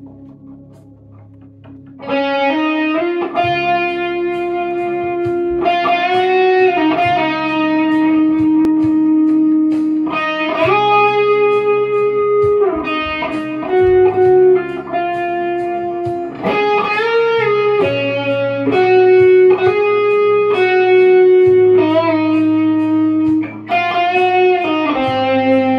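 Electric guitar playing a slow, sustained lead melody, single notes held long with string bends and vibrato, over a low held backing. The guitar comes in about two seconds in.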